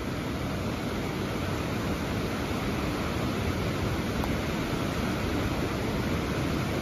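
Steady rush of a fast, high river running through whitewater rapids.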